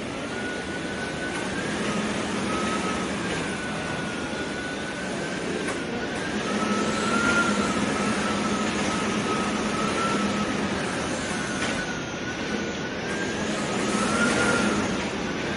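Hurricane-force wind and driving rain roaring steadily, with a thin high whistle from the wind that wavers up and down in pitch.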